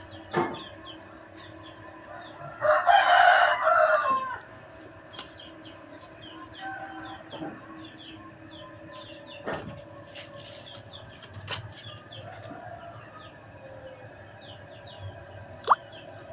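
A rooster crows once, loud, about three seconds in, over faint high chirping and a few sharp clicks.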